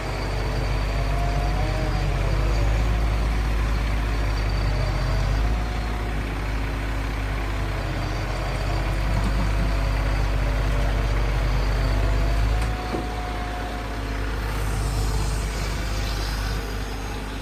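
Caterpillar asphalt paver's diesel engine running steadily, with a faint whine over it that rises and falls in pitch.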